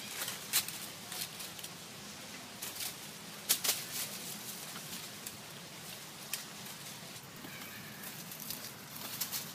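Outdoor ambience with scattered short crackles and clicks, the loudest pair about three and a half seconds in.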